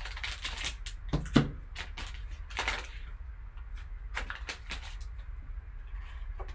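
Foil wrapper of a trading-card value pack crinkling and tearing as it is ripped open by hand, in a series of short crackles, with one sharp thump about a second and a half in. A low steady hum runs underneath.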